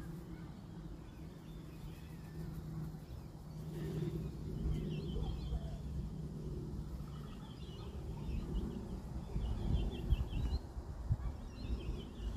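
Faint chirping of small birds in a few short, quick runs, over a low steady hum that fades out about seven seconds in and a constant low rumble.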